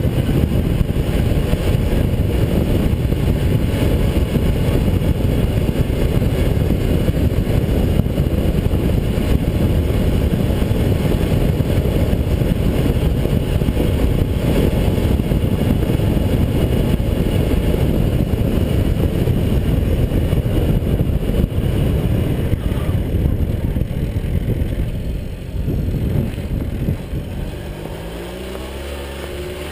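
A 1982 Tomos A3MS moped's small two-stroke engine running at riding speed under heavy wind buffeting on the mount. Near the end the wind drops as the moped slows onto a dirt track, and the engine's note comes through plainly, rising in pitch.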